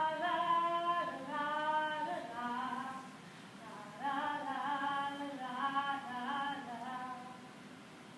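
A single voice singing a short melody unaccompanied, in two phrases of held notes with a pause of about a second between them.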